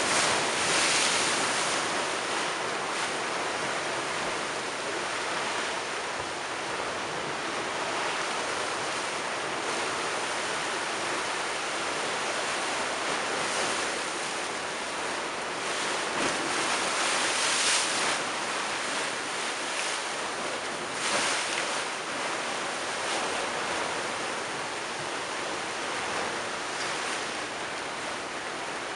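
Storm-surge waves surging in and breaking against a stepped stone sea wall: a continuous wash of surf, with louder crashes about a second in and again a little past halfway.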